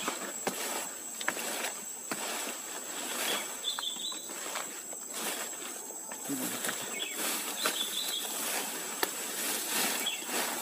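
Leaves and stems rustling and crackling irregularly as someone pushes through dense undergrowth, over a steady high-pitched insect drone.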